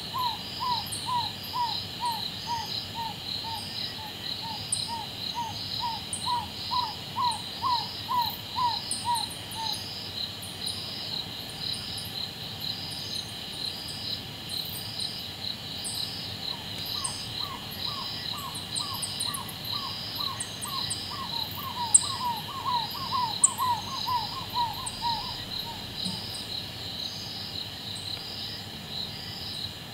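African barred owlet calling: two long series of short, evenly spaced hoots, about two a second. The first series swells and fades over some ten seconds; the second begins after a pause of about seven seconds. A steady pulsing chorus of crickets and insects carries on behind, and two short sharp clicks sound during the second series.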